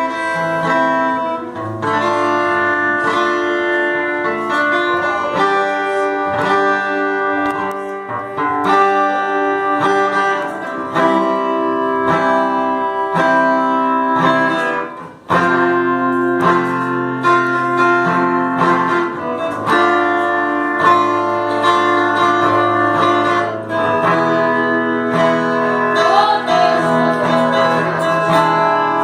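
Music led by guitar, with strummed and plucked chords, and a short drop in level about halfway through.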